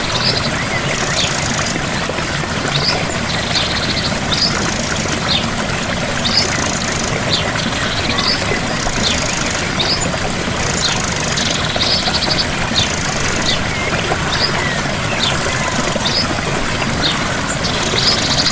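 Steady rushing of a small waterfall, with birdsong over it: short high notes and buzzy trills repeating every second or two.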